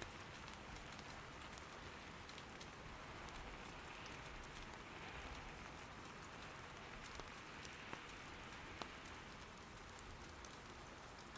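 Soft, steady rain patter, with a few faint sharp pops from firewood burning in an irori hearth about two-thirds of the way through.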